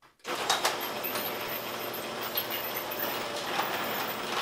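A sectional garage door being pushed up by hand: a steady rolling rattle with scattered clicks from the door's rollers and hinges, starting suddenly about a quarter second in.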